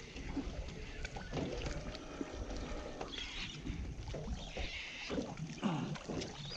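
Water lapping against the hull of a small fishing boat, with scattered light knocks and splashes.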